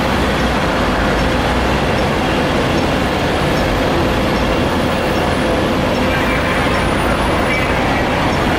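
Steady, loud rumble of running vehicle engines and street traffic, unchanging throughout.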